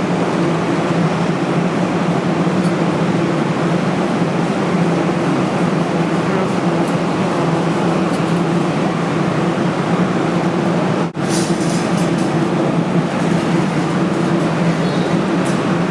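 Loud, steady mechanical hum with a low drone and even noise, briefly cut off about eleven seconds in.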